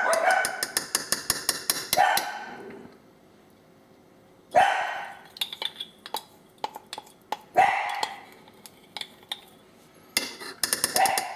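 A dog barking five times, single barks a few seconds apart, with quick runs of light metallic clinks, like a spoon stirring in a pot, near the start and the end.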